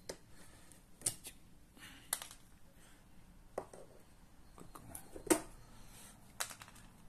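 Pliers pulling metal upholstery staples out of the underside of a sofa: a series of sharp metallic clicks, roughly one a second, the loudest about five seconds in.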